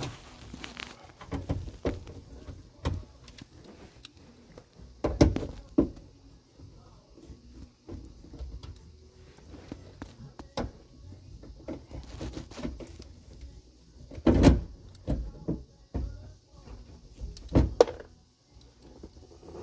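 Scattered knocks, clicks and rustling of hand work inside a pickup's door as the door speaker is unscrewed and pulled out, with sharper knocks about five seconds in, around fourteen seconds and near the end.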